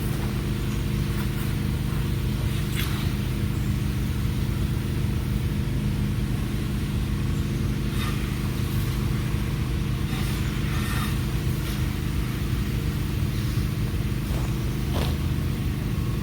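Steady low machine hum, like a motor running, with a few faint brief clicks over it.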